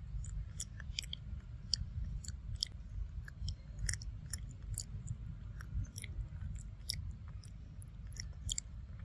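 A macaque chewing mango close to the microphone: a stream of small, irregular wet clicks and smacks, over a steady low rumble.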